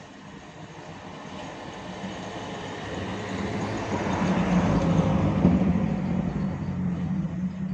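A motor vehicle passing by, its engine and road noise growing louder, peaking about five seconds in, then fading.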